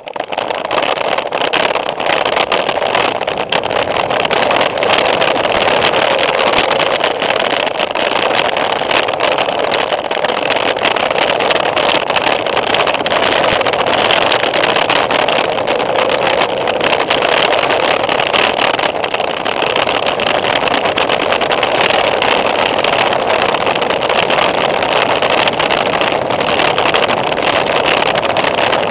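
Mountain bike descending a rocky, loose-stone trail: a steady, loud rush of wind and tyre noise with constant fine rattling as the wheels run over stones.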